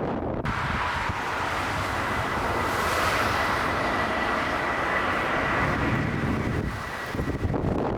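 Jet airliner's engines passing close by: a rushing roar with a steady high whine that sets in abruptly under a second in, peaks midway and fades near the end, over gusting wind buffeting the microphone.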